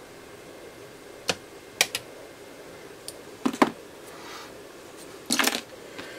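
Light clicks and a couple of short clatters from small metal hand tools, tweezers and side cutters, working on old wiring and being handled on the bench; the loudest clatter comes near the end.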